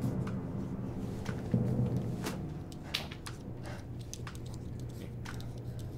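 Straight razor scraping through shaving lather and stubble in a series of short, crackly strokes, over a low steady drone.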